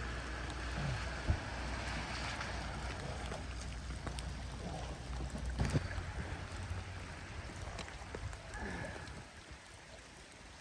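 Water running and splashing as a steady hiss, over a low steady rumble, with a couple of short knocks; it all drops away near the end.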